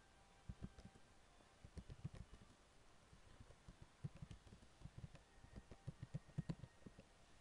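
Faint typing on a computer keyboard: quick, irregular key taps in short runs, heard as dull low clicks.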